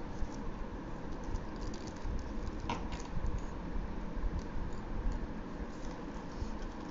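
Paper being folded and creased by hand against a tabletop: soft rustling with scattered light taps and clicks over a low rumble, one sharper click a little under three seconds in.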